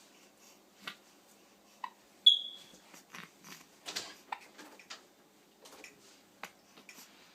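Short, sudden hiccups every second or two, with one loud, sharp high-pitched squeak about two seconds in.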